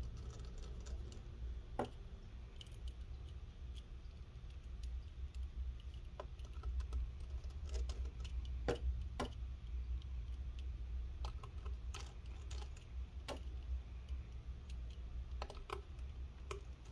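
Fingers handling small parts in an opened MacBook Air A2337: irregular faint clicks and taps over a low steady hum.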